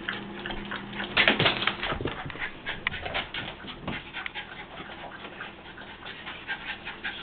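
Dogs chasing a laser dot, panting and scrambling, with many irregular clicks and scuffles; the dogs are winded from running.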